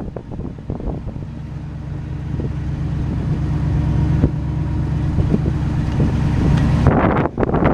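Gasoline engine of a 1967 Chevrolet C50 grain truck idling steadily, a low even hum. Wind buffets the microphone near the end.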